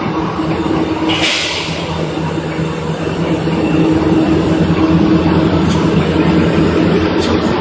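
Toilet tissue and kitchen towel converting line running: a steady mechanical hum with a low droning tone, getting louder after about four seconds. A brief hiss comes about a second in.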